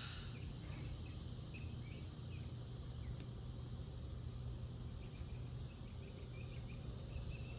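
Air hissing out of the golf cart tire's open valve stem cuts off about half a second in, leaving faint background with insects chirping in short, scattered calls.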